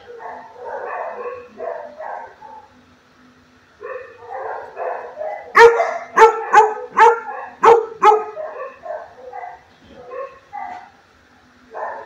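A dog whining and yipping in short high calls, breaking into a run of about seven sharp barks about halfway through, then back to whining.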